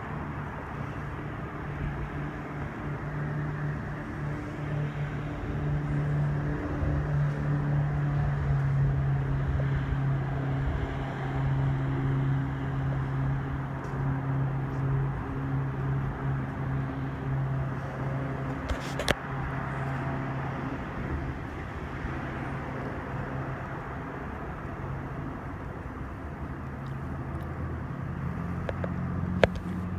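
A low engine hum that swells over several seconds and then slowly fades, over a steady rushing noise. Two sharp clicks, one about two-thirds through and one near the end.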